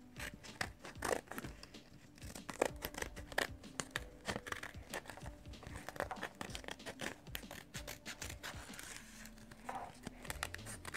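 Small scissors snipping through a sheet of paper, many short cuts in quick succession, with the paper rustling as it is handled and turned.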